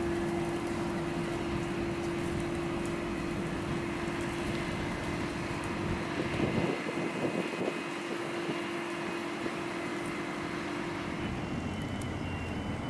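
Outdoor street ambience with a steady mechanical hum at one constant pitch over a bed of noise. Some faint, irregular wavering sounds come through about six to eight seconds in. Near the end the hum drops away and a fainter, higher steady tone takes its place.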